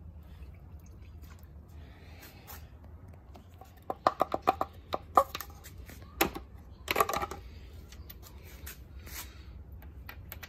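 A run of sharp clicks and knocks in the middle, over a steady low hum: hands working with tools and parts in a motorcycle's engine bay.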